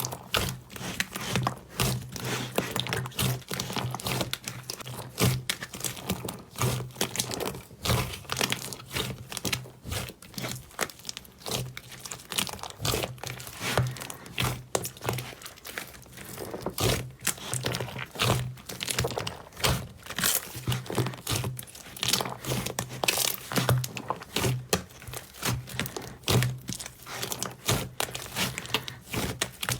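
Slime being squeezed and pressed by hand, giving a dense, continuous run of crackles, pops and crinkles over a steady low hum.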